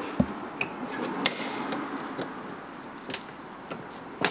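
Scattered light metallic clicks and ticks of snap-ring pliers working at a sticking snap ring in the bore of a Rolls-Royce Corniche water pump housing, the sharpest about a second in.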